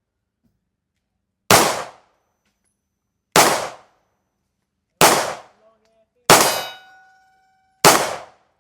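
Five single gunshots fired one at a time, about one and a half to two seconds apart. After the fourth, a steel plate target rings with a clear ping that fades over about a second, the sign of a hit on steel.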